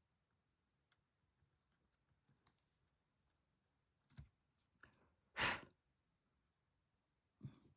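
Faint, scattered clicks and taps of small parts being handled, with one short, much louder noise about five and a half seconds in.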